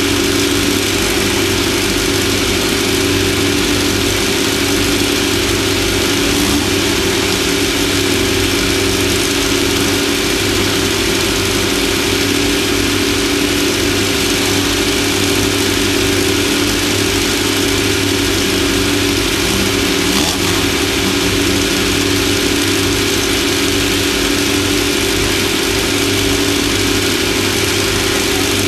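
Off-road race vehicle's engine running hard at nearly steady revs, over a constant rush of wind and terrain noise.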